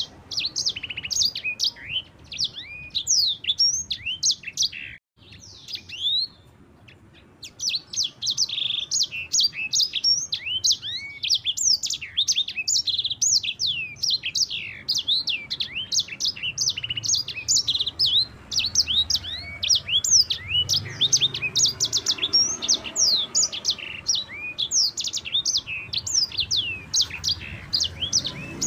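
Sanger songbird singing a long, rolling song of rapid high chirps, each note sliding down in pitch, with a brief pause about five seconds in.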